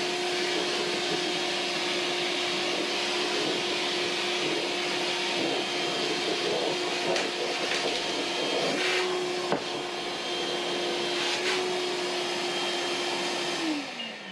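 Milwaukee M12 Fuel cordless wet/dry vac running on its low setting: a steady motor whine over rushing air as it sucks up dust and debris, with a few sharp clicks as debris is drawn in. Near the end it is switched off and the whine falls in pitch as the motor spins down.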